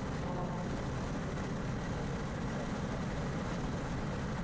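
Mazda RX-8's twin-rotor rotary engine running steadily at speed, heard from inside the cabin mixed with road and wind noise.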